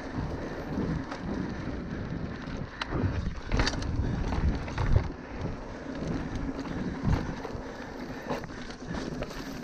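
Mountain bike riding down a dirt trail: wind buffeting the microphone over the tyre noise and the clatter of the bike, with frequent knocks from bumps.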